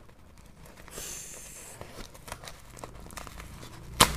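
Hands opening a small cardboard box: rustling and crinkling of the packaging with scattered small clicks, a brief scraping hiss about a second in, and one sharp click near the end.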